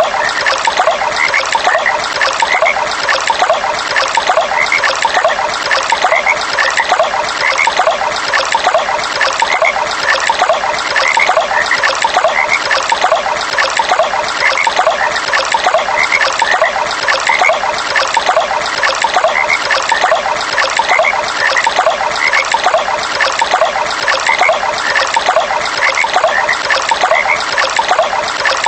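Running water trickling steadily, with frogs calling over it in many short, repeated croaks throughout.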